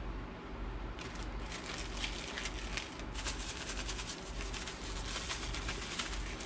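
Plastic bag of cornmeal breading crinkling and rustling as an egg-dipped fish fillet is shaken in it, a dense run of fine crackles starting about a second in, with a brief lull partway through.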